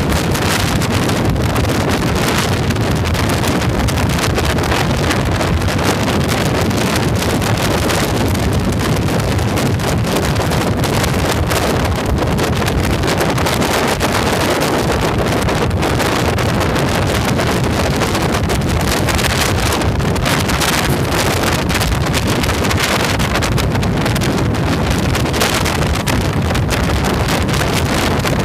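Steady wind rushing over the microphone of a motorcycle moving at around 100 km/h, with the bike's engine and road noise running underneath.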